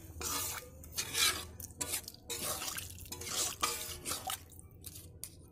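Metal spatula stirring chicken pieces in watery curry in an iron kadai, scraping the pan in irregular strokes that ease off near the end.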